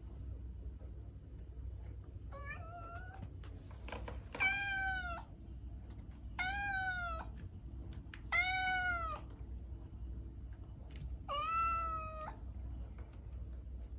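A cat meowing five times, about two seconds apart, each meow a short arched call under a second long, the first one fainter than the rest. A low steady hum runs underneath.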